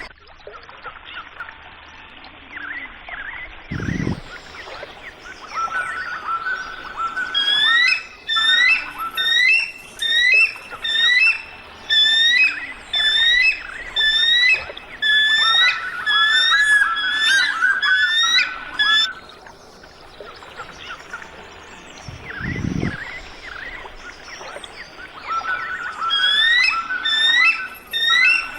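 Eagle calling: long runs of rapid, high piping, chittering notes, falling quiet for several seconds in the middle before starting again. Two brief low thuds sound under a steady background hiss.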